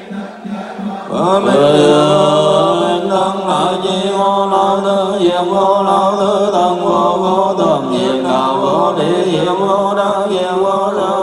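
Group of Vietnamese Buddhist monks chanting in unison, a sustained drawn-out liturgical chant that swells in about a second in.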